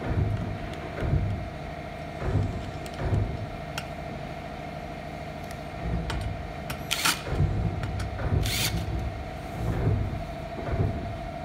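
Dull knocks and clunks of a chrome barber-chair armrest bracket being handled against the seat frame during assembly. About 7 and 8.5 seconds in come two short whirring bursts of a cordless drill-driver. A steady faint hum runs underneath.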